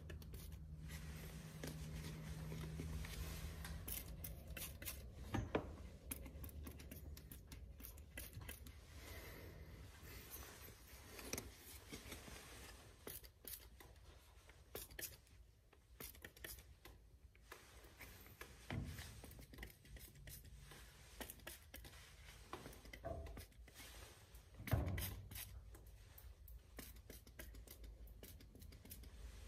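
Hand trigger spray bottle spritzing soapy water onto gas pipe fittings in many short, faint spurts, leak-testing a newly connected gas line. A couple of soft knocks come later on.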